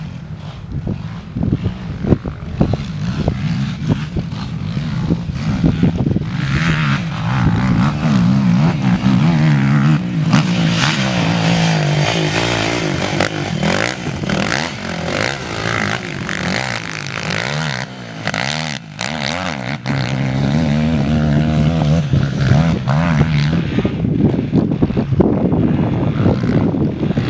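Sport quad's engine revving up and down as it is ridden hard through sand, its pitch rising and falling with throttle and gear changes; it drops back briefly about two-thirds of the way through, then picks up again.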